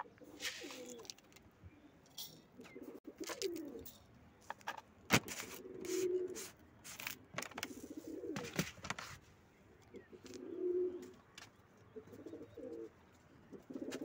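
Domestic pigeons cooing, a low coo repeating every couple of seconds, with scattered sharp clicks and knocks; the loudest comes about five seconds in.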